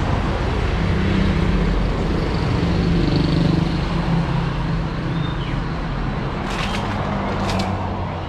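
Yamaha Raptor 700 quad's single-cylinder engine idling steadily, with a couple of short rattles near the end.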